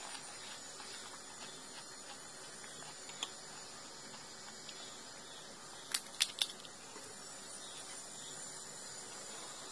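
Quiet, steady background hiss, with a single light crack about three seconds in and three quick sharp cracks around six seconds in: crisp panipuri (golgappa) shells crunching as they are handled and eaten.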